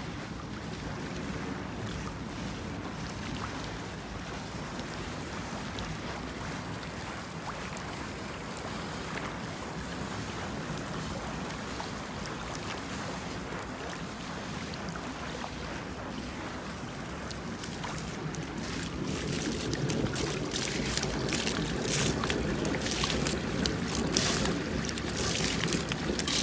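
Water churning and sloshing in an infinity-edge pool, a steady rush. About three-quarters of the way through it grows louder and splashier as water spills over the pool's edge and falls into the overflow gutter.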